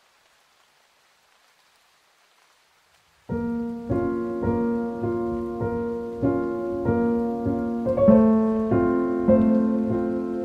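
Faint rain hiss, then a little over three seconds in a solo piano piece starts abruptly. Its notes are struck in a steady pulse a little more than half a second apart.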